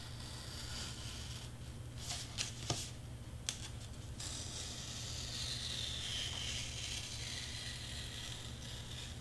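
Excel Fit Grip craft knife cutting through foam board along a traced line: a few light clicks as the blade is set, then a faint continuous scratching hiss as it is drawn slowly through the board.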